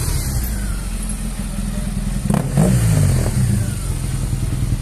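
BMW R1200GS boxer-twin engine running through a Two Brothers aluminium slip-on exhaust, revved once about two seconds in and dropping back to a lumpy, pulsing idle.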